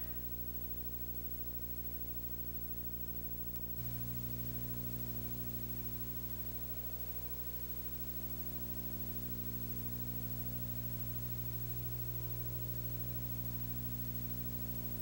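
Steady electrical hum with a faint hiss from an old analog videotape. About four seconds in, the hum steps up and gets louder.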